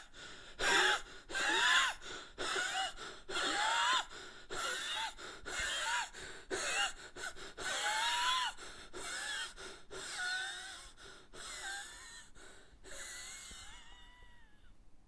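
A person gasping for air in short, rapid breaths, the sound of shortness of breath, with a whistling note rising and falling in many of the breaths. About one and a half breaths a second, growing fainter toward the end and then stopping abruptly.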